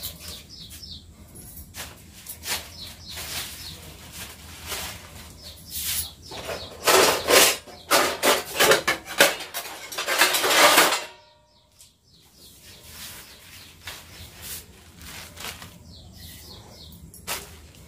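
Steel dishes, plates and pots clattering against each other as they are handled in a wire dish rack. The clatter is densest and loudest in the middle, stops abruptly, then lighter handling follows.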